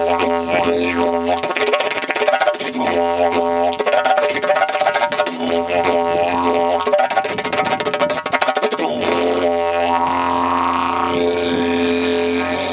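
Didgeridoo made of PVC pipe, played as a continuous drone with the overtones shifting as the mouth and voice shape the sound. Its deepest tone drops away and comes back several times.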